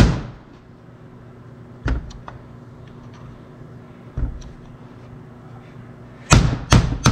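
Hammer striking a steel punch held on a seal in a Kenne Bell supercharger's aluminium bearing plate, knocking the seal out. A sharp blow at the start, single blows about two and four seconds in, then a quick run of three near the end.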